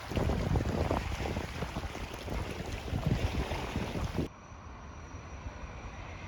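Wind gusting and buffeting the microphone, with a rough rush of noise that may include lake water on the shore. About four seconds in it cuts off abruptly to quieter indoor room tone with a faint high whine.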